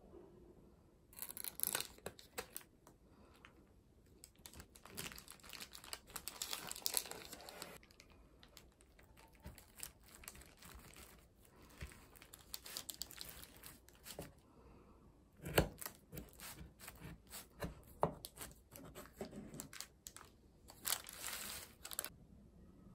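Large kitchen knife cutting through a tray of lemon bars on parchment paper: repeated rough cutting strokes through the crust, with the parchment crinkling. A few sharp knocks, the blade meeting the wooden board, come about two-thirds of the way through.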